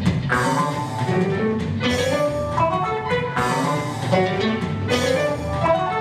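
Instrumental music: a guitar-led melody over bass and drums.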